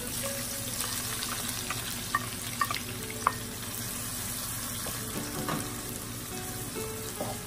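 Sliced onions sizzling in hot oil in a frying pan, the sizzle starting as they hit the oil, while a wooden spatula stirs them. Three sharp knocks of the spatula against the pan come a couple of seconds in.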